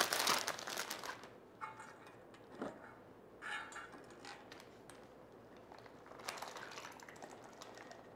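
Plastic zipper storage bag crinkling as it is pulled open, loudest in the first second, followed by a few faint knocks and rustles as the bag and a stainless mixing bowl with a whisk are handled.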